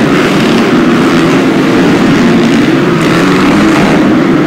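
Several small dirt bike engines running hard together in a loud, steady buzz as they race around an indoor arena track.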